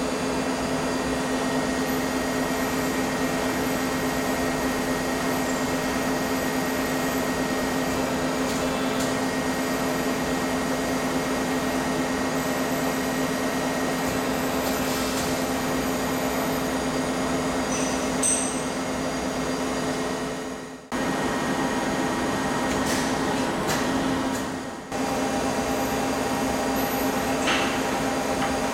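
Kim Union UM-3DL three-die thread rolling machine running: a steady mechanical hum with a constant low tone, with a few faint clicks and taps. The sound dips out briefly twice in the last third.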